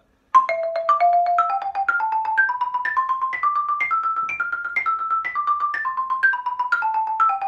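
Xylophone played with two mallets in the key of C: quick repeated strokes on two-note intervals, stepping up a scale and then back down. It starts about half a second in.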